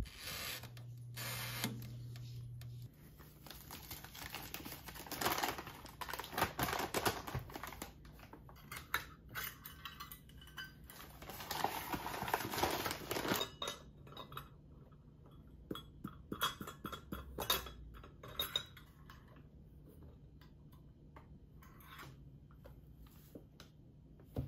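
Kitchen handling sounds while dry ingredients are prepared: clinks and knocks of a glass mixing bowl, metal mesh sieve and measuring utensils, with rustling as flour goes into the sieve. Near the start, a toaster oven's dial is turned and a low hum runs for about two seconds.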